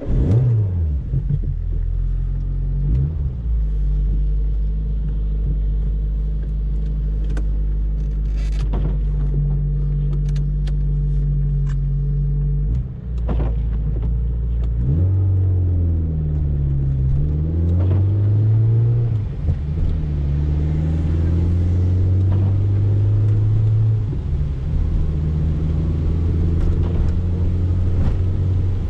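The 1990 Peugeot 205 XS's 1.4-litre carburetted four-cylinder engine, heard from inside the cabin, pulling the car along and changing gear. Its pitch drops just after the start and dips again about 13 seconds in, rises and falls over the next few seconds, then settles to a steady drone, with a few light clicks over it.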